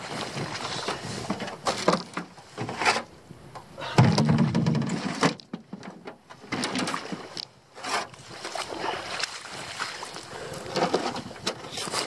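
Knocks, rustling and wind on the microphone as someone moves about in a small dinghy, with a louder low rumble about four seconds in. No outboard is running.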